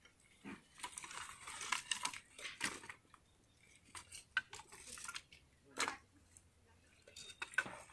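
Dry firewood sticks knocking and clattering together in irregular short clicks as they are picked from a pile and laid on a sack, with brief rustling of the sack and dry grass.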